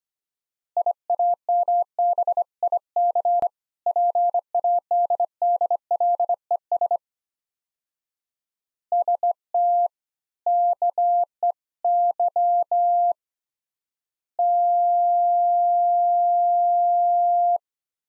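Morse code keyer tone: a single steady beep keyed into dits and dahs in two runs, then one long unbroken tone held for about three seconds near the end.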